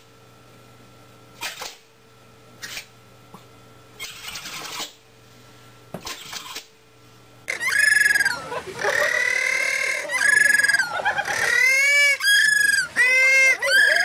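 A few short rustling noises, then from about halfway a series of loud, high-pitched animal calls, each one arching up and down in pitch and repeating in quick succession.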